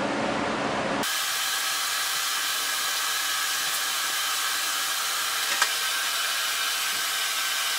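An electric fan or blower running steadily, a high even hiss with a faint whir in it that cuts in abruptly about a second in. One small click partway through.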